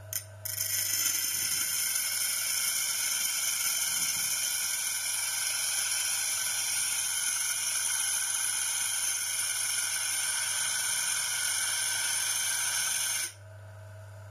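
A high-speed power tool running steadily with a loud, high-pitched hiss of grinding or cutting, starting after a short blip and cutting off abruptly near the end.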